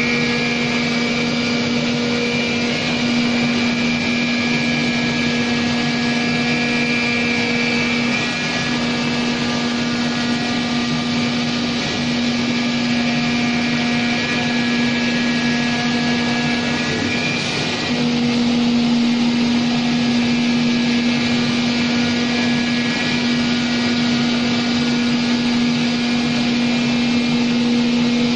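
CNC oscillating knife cutting machine running while cutting fur and leather: a steady hum of constant pitch over an even hiss. It eases off slightly about eight seconds in, grows louder again a little past halfway, and the hum cuts off at the very end.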